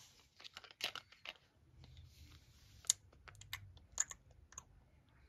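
Light, irregular clicks and taps of hard plastic play food and a toy fork handled against a small plastic plate, the sharpest click about three seconds in.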